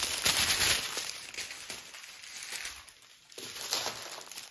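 Thin plastic crinkling as small bags of diamond painting drills and plastic packaging are handled. It is loudest in the first second, fades, and comes back briefly near the end.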